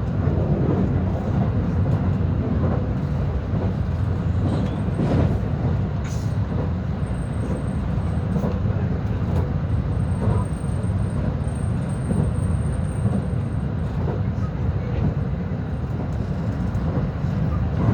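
Rapid commuter train running between stations, heard on board: a steady, loud low rumble of wheels on rail, with a few short knocks about five to six seconds in.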